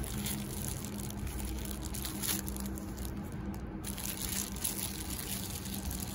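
Clear plastic wrap around a bag strap crinkling and rustling as it is unwrapped and handled, in irregular crackles.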